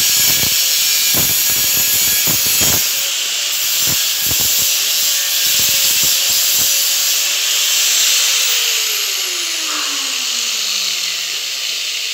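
Handheld angle grinder grinding metal: a steady motor whine over the hiss of the disc on the metal, with uneven knocks as the disc bites during the first seven seconds. About eight seconds in it is switched off, and the whine falls in pitch as the disc spins down.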